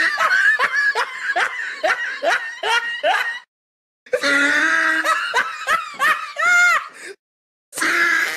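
A person laughing in a quick run of ha-ha bursts, about three a second, in three stretches cut apart by two brief dead-silent gaps, as if an edited-in laugh clip.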